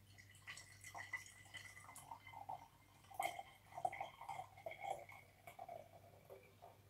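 Faint trickling and dripping of red cabbage juice poured from a glass beaker through a metal mesh sieve and funnel into a conical flask, with a utensil lightly scraping and ticking in the sieve.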